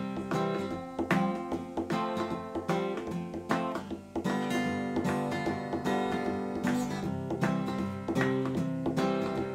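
Background instrumental music led by an acoustic guitar, with a steady run of plucked notes.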